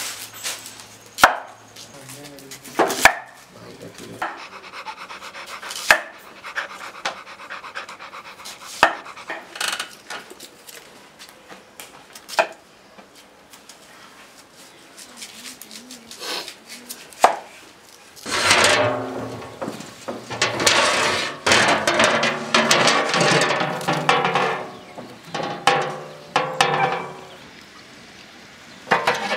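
Knife slicing onions on a wooden cutting board: sharp single strikes every few seconds. About two thirds of the way in, a loud stretch of vocal sound takes over for several seconds.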